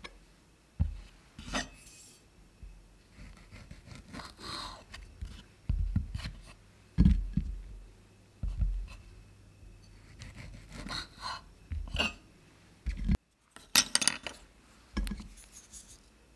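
Sausages and a steel kitchen knife worked on a wooden cutting board: a series of soft thuds on the wood as sausages are set down and cut through, mixed with light scrapes and clinks of the blade. Near the end, thin wooden skewers rattle on the board and one is pushed into a piece of sausage.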